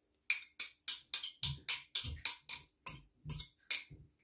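Kitchen knife scraping and tapping against a stainless steel garlic press to clear out crushed garlic: a quick series of sharp metallic clicks and taps, about four a second.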